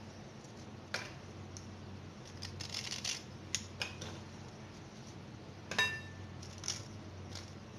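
Light clicks and short scrapes of a steel table knife against ceramic dishes as Oreo biscuits are twisted apart and their cream filling scraped off. The loudest is a single ringing clink of knife on ceramic about six seconds in.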